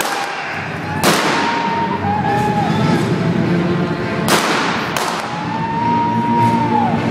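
Pyrotechnic bangs echoing in a large hall: three sharp blasts, about a second in, at about four seconds and again a second later, each dying away slowly. Music and a wavering high whine run between them.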